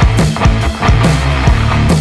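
Loud background music with a fast, heavy drum beat over a sustained bass line.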